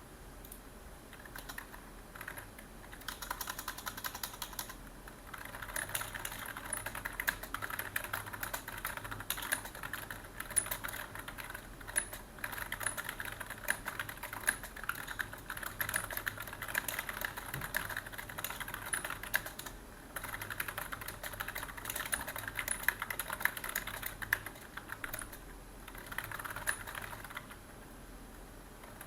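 Typing on a computer keyboard: rapid runs of key clicks in bursts, broken by short pauses.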